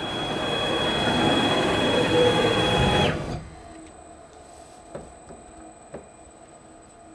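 CNC router and its dust collector running: a rushing noise with a steady high whine over it, growing louder, then stopping abruptly about three seconds in. After that a faint high hum remains, with two light clicks.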